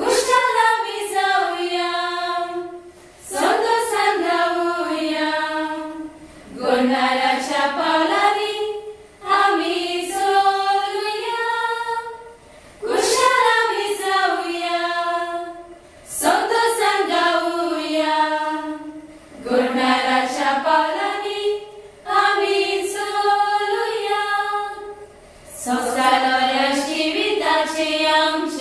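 A small group of women singing together unaccompanied, in phrases of a few seconds each with brief breaths between.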